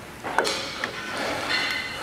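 Metal parts being handled on a steel auger motor mount: one sharp click about half a second in, then faint scraping and knocking.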